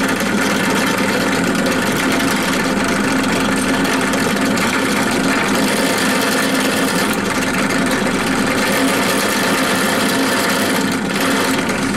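Bench drill press running steadily, its bit cutting into an aluminium bar to countersink a screw hole, fed down to a set depth stop.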